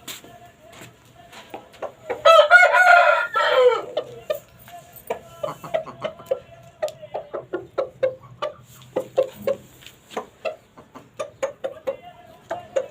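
Lasani chickens: a rooster crows once, loudly, for about a second and a half starting about two seconds in, and short clucks follow, repeated through the rest.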